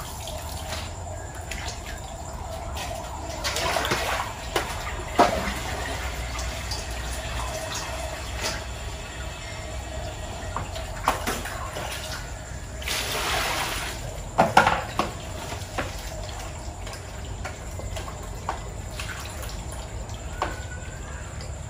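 Tap water running into a metal basin as bunches of leafy greens are rinsed. Water drips and splashes as the greens are lifted and swished, with a few louder splashes and clinks along the way.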